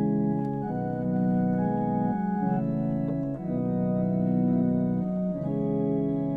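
Organ playing a slow introduction of held chords that change every second or two.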